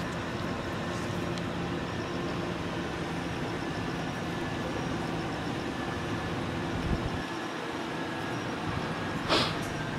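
Steady hum of an idling vehicle engine over traffic noise, with a low thump about seven seconds in and a short sharp noise about nine seconds in.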